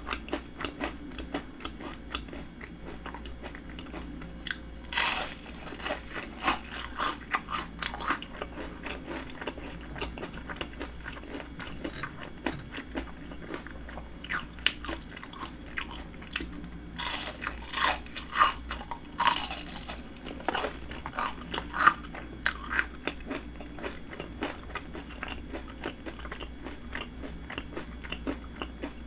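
Bites and chewing of crispy breaded fried shrimp. Crunching comes in several runs of sharp crackles, with quieter chewing between them.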